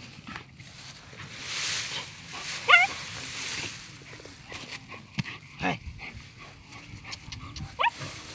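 Dog whining in two short, high, wavering cries, a loud one about three seconds in and another near the end, with rustling and scraping in between as dogs dig at a field mouse burrow.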